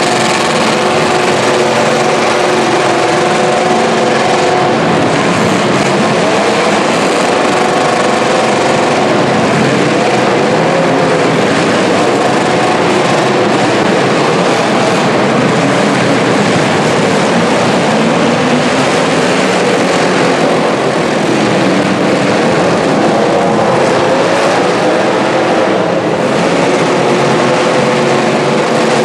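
Engines of 1980s full-size stock demolition derby cars running and revving together in a loud, steady wash of engine noise.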